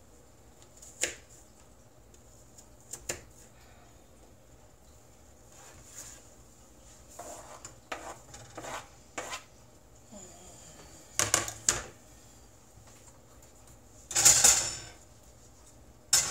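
Kitchen clatter from a frying pan being worked: scattered knocks and scrapes as a cutting board and utensils meet the pan, coming in short clusters. The loudest is a noisy rasp of under a second about two seconds before the end.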